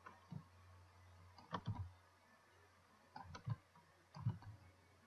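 Faint clicks of a computer mouse: a few scattered clicks, some in quick groups of two or three, over a low steady electrical hum.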